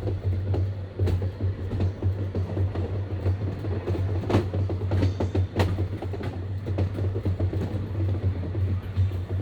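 Electric rack railway train running, heard from the cab: a steady low hum with a dense patter of clicks and knocks from the wheels on the track, and two sharper knocks around four and five and a half seconds in.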